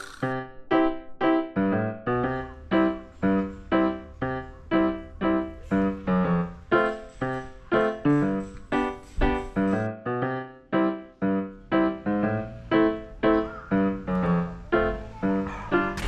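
Background music: a piano-like keyboard playing an even, steady run of struck notes, about two to three a second.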